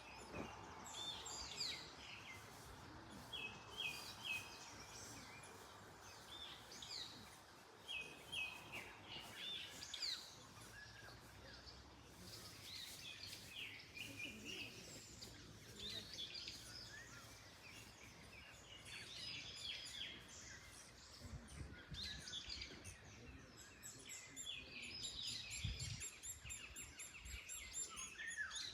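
Several songbirds chirping and singing over one another, some in short runs of repeated notes, over a soft wash of wind in the trees.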